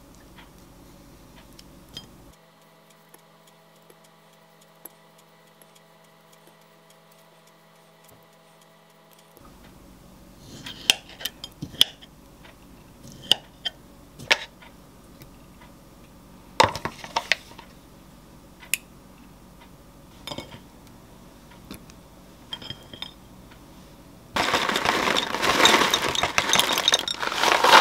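Kitchen knife clicking and knocking against a ceramic plate as a kiwi is sliced, a string of sharp separate taps. Near the end, a loud dense rattling rustle as pieces are poured from a paper bag into a glass mug.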